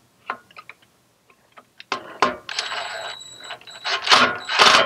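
Light metallic clicks, then from about two seconds in a cordless drill/driver runs in short spurts with a steady whine, tightening a Torx screw into the inverter's fan mounting; the loudest spurts come near the end.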